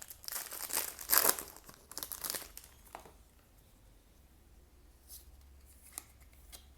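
A trading-card booster pack's foil wrapper being torn open and crinkled, in a few rough rustling bursts over the first two and a half seconds. After that it goes quieter, with a couple of faint ticks.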